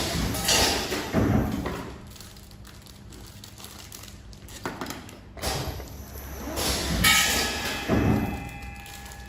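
Vertical packaging machine with a conveyor running over a steady low hum, with two spells of thuds and rattling bursts about five seconds apart.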